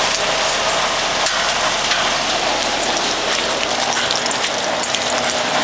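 Steady heavy rain, with the running 2011 Broan 3-ton heat pump's outdoor unit humming steadily underneath.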